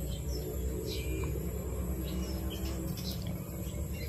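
Steady low background rumble with a high, constant insect drone, and a few short, faint chirps or crinkles scattered through it.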